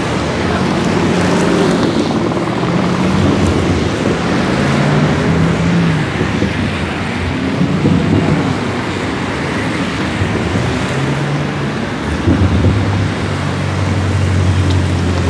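BMW cars accelerating past one after another, each engine note rising and falling as it goes by. Near the end a BMW M5 F90's twin-turbo V8 comes through louder and steadier as it pulls away.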